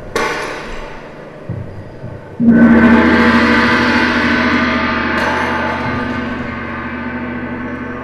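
A short bright metallic crash, then about two and a half seconds in a loud gong stroke that rings on with several steady tones, slowly fading.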